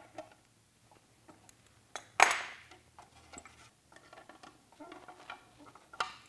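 Small metal wrench clicking and ticking on a nut as it is tightened onto an anchor bolt through a fiberglass mold. There is a sharp clank about two seconds in and another near the end.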